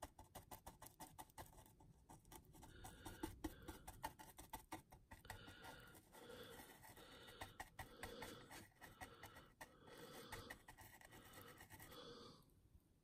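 Faint scratching and dabbing of a bristle brush working a thick, gritty mud texture paste onto a model's base. Quick scratchy strokes come first, then slower dabs about once a second.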